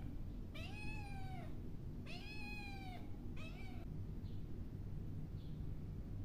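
Kitten meowing three times: two meows of about a second each, then a shorter one, each rising and then falling in pitch.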